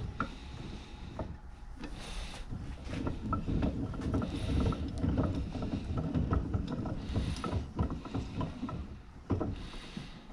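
Hands working the screw and threaded carrier of an older Craftsman bench vise: scattered small metal clicks and rattles over a low rubbing rumble, as the freshly repaired threads bite and the screw runs in.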